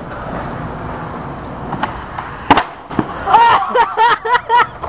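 Skateboard wheels rolling on concrete, then a single sharp crack of the board hitting the ground about halfway through and a second smaller knock. Right after, people shout and cry out in a quick string of short yells.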